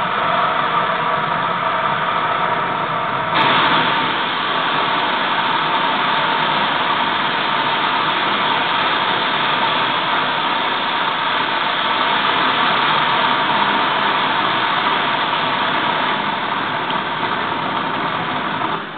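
Rocket launch roar from a projected launch video, heard in a large gym: a steady, loud rushing rumble that grows louder a few seconds in as the rocket lifts off, then cuts off abruptly at the end.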